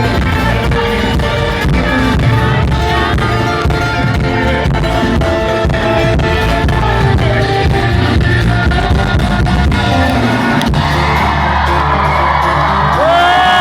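Loud music with guitar and singing over a steady beat; near the end a voice sweeps up into a long held note.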